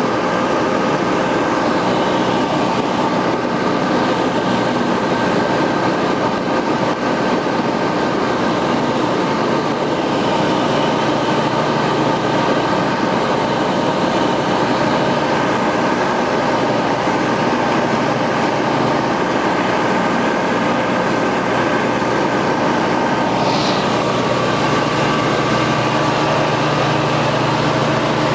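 Ultralight aircraft's engine and propeller running steadily in cruise, heard as a loud, even drone inside the cockpit.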